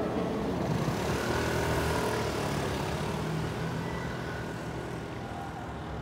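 Rumble of a Keikyu train fading as it pulls away from the level crossing, with faint thin wheel-squeal tones and the low hum of road traffic waiting at the barrier.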